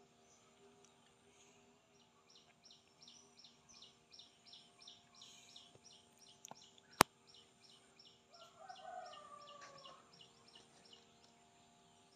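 Quiet, even chirping, about three short high chirps a second, with a lower call that falls in pitch near the middle and a single sharp click about seven seconds in.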